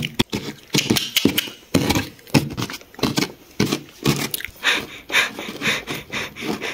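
Plastic toy horse figure being walked through coarse sand, its hooves scraping and crunching at each step. The steps come about two a second and quicken in the second half.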